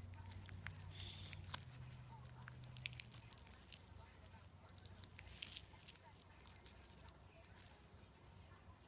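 Slime being played with by hand: faint, irregular small clicks and crackles, with a low hum that fades out about three seconds in.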